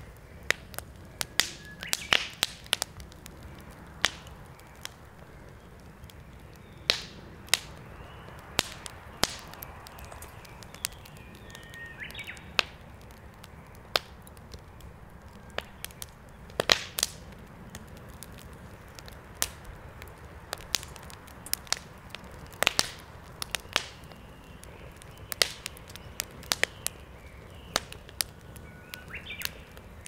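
Wood fire crackling, with irregular sharp pops, a few of them loud, over a low steady rumble. Now and then a faint short bird chirp.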